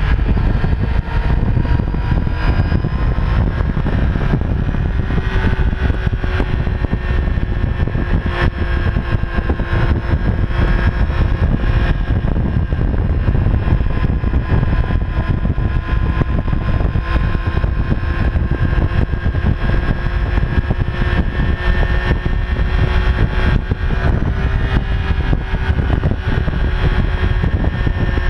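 Motorcycle engine running steadily through its exhaust, a deep even rumble that rises slightly in pitch a few times.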